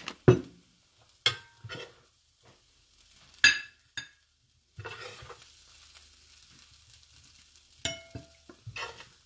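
A metal serving spoon and a spatula clinking and scraping against a ceramic plate as potato hash is scooped onto it: a scattering of sharp clinks, the loudest about three and a half seconds in, with a stretch of soft scraping in the middle.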